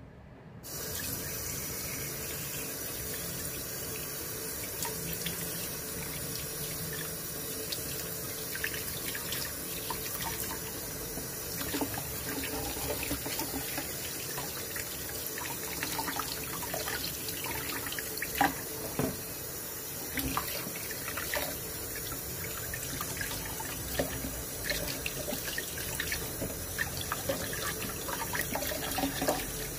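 Tap water running into a stainless steel bowl in a sink, splashing as parboiled meat pieces are rinsed and rubbed by hand under the stream. Scattered sharp splashes sit over the steady running water, the loudest about two-thirds of the way through.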